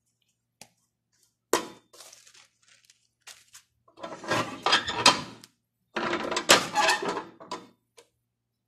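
Blue metal tortilla press being worked on a ball of masa between plastic sheets: a sharp knock about a second and a half in, then two longer spells of clattering and plastic crinkling as the press is closed and pressed down.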